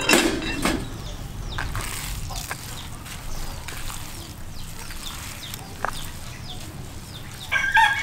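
Hands squishing and kneading raw minced meat in a plastic bowl, with a knock at the start and faint bird chirps. Near the end a rooster starts crowing loudly.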